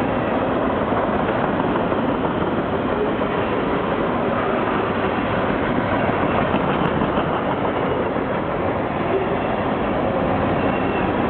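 Empty freight train of trash cars rolling past at track side, with a steady rolling noise of wheels on rail.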